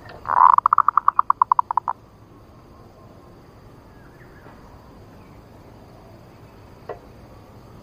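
Female zebra dove (perkutut) call, the 'ngerot' lure call: a loud first note followed by a rapid run of about a dozen short cooing pulses, lasting about a second and a half.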